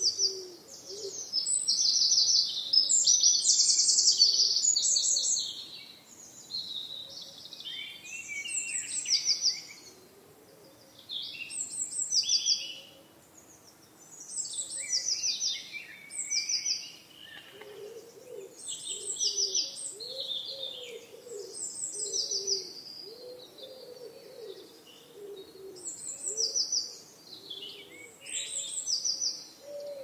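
Several wild birds singing: bright, high chirping phrases and quick trills come again and again every couple of seconds, busiest in the first few seconds. Underneath, a lower, softer call repeats, mostly in the second half.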